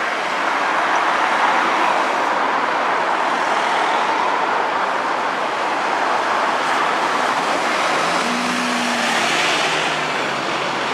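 Alexander Dennis double-decker buses in city-centre traffic: a steady wash of engine and tyre noise as one bus passes close by, with another bus's engine note showing up briefly near the end.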